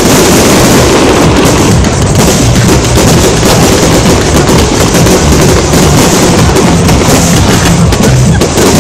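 Aerial firework shells bursting in a continuous barrage of bangs and crackling stars, very loud throughout.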